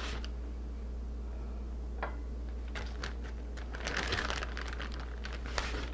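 Soft rustles and light clicks of lemon wedges being handled and set down on a china plate, a handful of short touches with the busiest cluster about four seconds in, over a steady low electrical hum.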